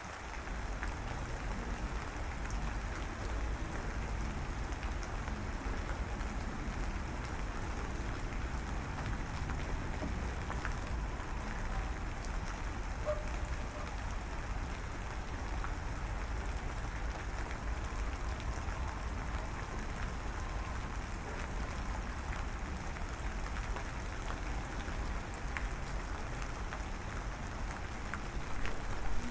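Steady rain sound, an even hiss with scattered faint drop ticks over a low rumble.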